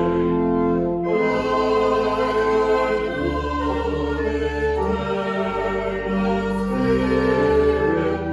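Music with long held chords over a sustained low bass, the chords changing every second or two.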